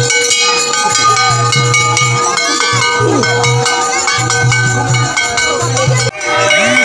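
Metal bells ringing continuously, many overlapping ringing tones, amid a crowd's voices and a low on-and-off hum; the sound dips briefly about six seconds in.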